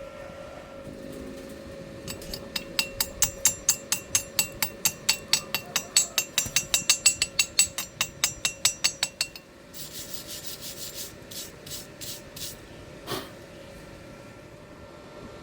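A hand tool scraping metal in fast, even strokes, about five a second, followed by a lighter, sparser run of strokes and a single knock a couple of seconds before the end. A faint steady hum sits underneath.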